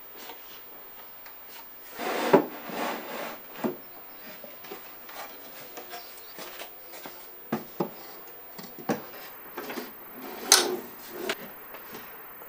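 Wooden drawers with MDF faces sliding in and out on metal drawer runners, with sharp knocks and clicks as the faces are pushed against their push-to-open latches. There is a burst of sliding and knocking about two seconds in, and another loud knock near the end.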